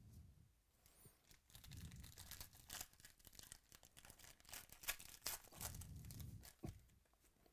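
Foil wrapper of a 2018 Panini Chronicles baseball card pack being torn open and crinkled by hand: a faint run of irregular crackling rips.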